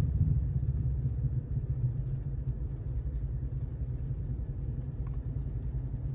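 Low steady rumble of a car heard from inside the cabin, with a few faint ticks.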